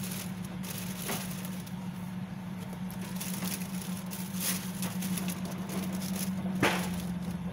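Crackles and light clicks of a takeout bowl and plastic fork being handled, with one sharp click near the end, over a steady low hum.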